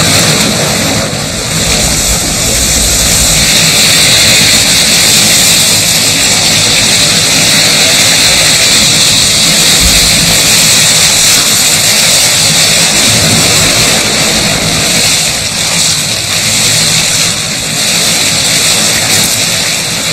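Steady rushing and splashing of seawater churned by southern right whales jostling at the surface.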